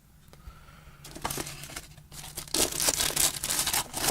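Packaging crinkling and rustling as items are lifted out of a radio's box, starting quietly about a second in and getting busier and louder over the last couple of seconds.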